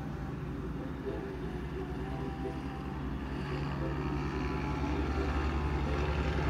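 Low, steady engine drone that grows stronger about three seconds in and louder toward the end.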